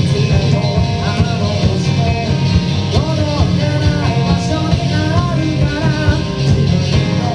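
Live rock band performance: a vocalist singing over loud drums, bass and guitars.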